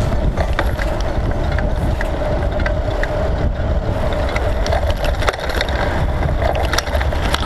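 Steady rumble and rattle of a mountain bike rolling over a rough road surface, picked up by a camera mounted on the bike, with scattered short knocks from bumps.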